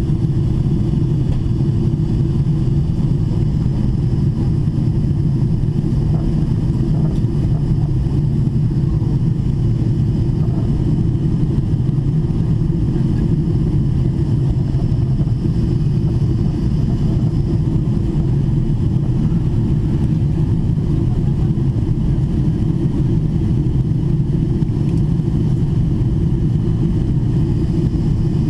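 Steady cabin noise inside a Boeing 777-300ER airliner in level flight: an even rumble of airflow and GE90 engines, heaviest in the low range, with faint steady tones above it.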